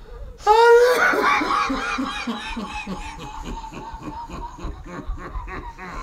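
A man's long coughing fit that sounds like cackling laughter. It opens with a loud strained whoop, then runs into rapid rhythmic hacks, about four a second, that slowly tail off.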